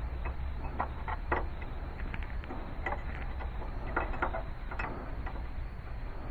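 Irregular metal clicks and clinks of a wrench working on the power steering high-pressure hose fittings as they are tightened, over a steady low rumble.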